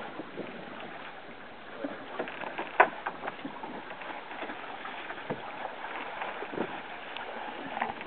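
Water sloshing and splashing along the hull of a wooden double-hull canoe under way, with the irregular splashes of a wooden paddle stroking. A single sharp knock comes about three seconds in.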